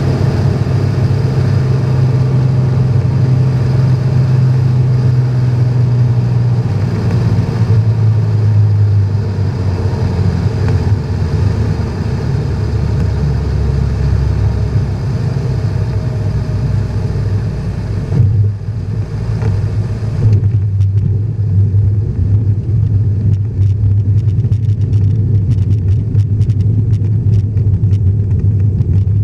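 Cessna 210's flat-six engine and propeller drone heard from inside the cockpit, the hum dropping in pitch about a quarter of the way in as power comes back for landing. After touchdown, about two-thirds of the way in, the rush of air dies down and the wheels rattle and knock over the rough dirt strip while the engine runs on at low power.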